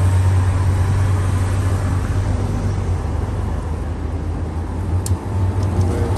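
A car driving: a steady low rumble of engine and road noise, with a short click about five seconds in.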